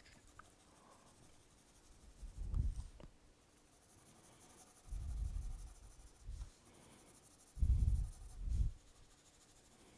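Graphite pencil shading on drawing paper: three spells of back-and-forth strokes, about two and a half seconds in, again at five seconds, and near the end, with quiet between.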